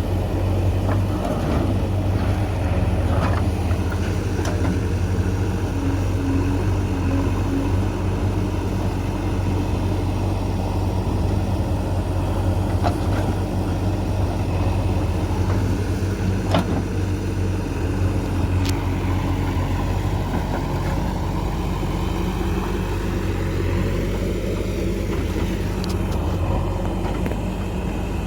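Diesel engine of a JCB 3DX backhoe loader running steadily while it works, with a few brief knocks.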